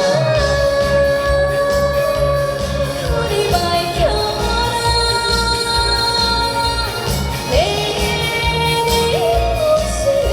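Trot song played loud over a PA, with singing: long held melody notes that slide between pitches, over a steady thumping bass beat.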